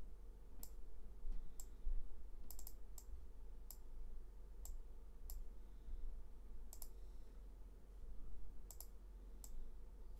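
Irregular clicks of a computer mouse, some coming in quick pairs or triples, over a faint low hum.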